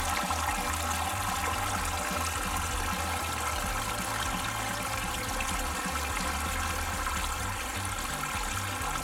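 Garden hose pouring a steady stream of water into a plastic water table, the water splashing and trickling down through the toy's showers and chutes into the basin.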